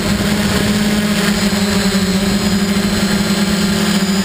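FPV quadcopter's electric motors and propellers running in flight, a loud, steady buzzing hum heard up close from on board.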